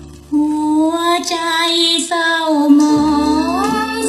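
A woman's voice singing long held notes over band accompaniment, sliding upward in pitch near the end, in an old recording of a Thai luk thung song.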